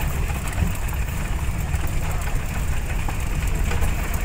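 Vehicle engine running with the rattle and crunch of tyres on a rough gravel track, heard from inside the cabin as a steady low rumble.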